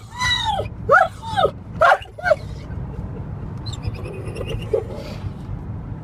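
Excited dog whining and squealing in a moving car: about four short arching whines in the first two and a half seconds, then a faint high-pitched squeal around four to five seconds, over the car's steady low rumble. The dog is excited at nearing home.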